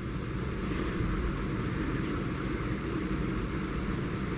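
Steady low rumble with hiss, even throughout, with no distinct event in it.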